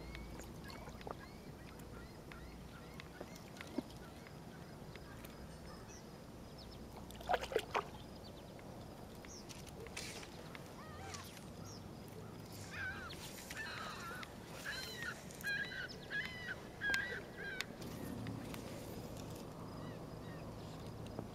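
Birds calling: a run of short, repeated calls in the second half, over a faint steady background. A brief clatter of sharp clicks about seven seconds in.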